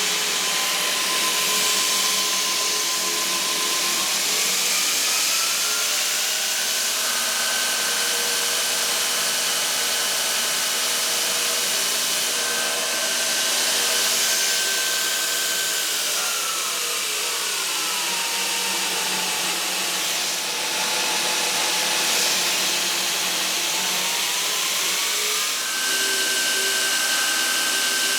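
Ex-Cell-O belt grinder's three-phase motor and belt running free on a variable-frequency drive, a steady whine. It climbs in pitch a few seconds in, drops about two-thirds of the way through and rises again near the end as the drive speed is changed.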